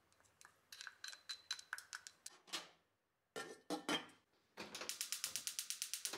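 Chopsticks tapping quickly against a glass jar, then a stainless steel pot lid clattering into place on a stainless pot, then a gas hob's igniter clicking rapidly, about nine clicks a second, as the burner lights.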